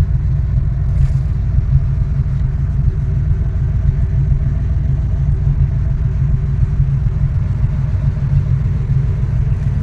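1972 Pontiac Grand Prix's V8 running as the car cruises, a steady low rumble of engine and road noise heard from inside the cabin.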